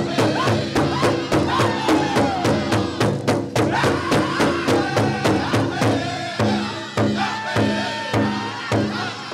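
Pow wow drum group singing a Chicken dance song over a fast, steady beat struck together on a big bass drum. About six seconds in the drumming slows to single, spaced strikes while the singing carries on.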